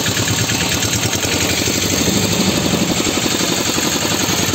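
Motorboat engine running steadily with a rapid, even chugging.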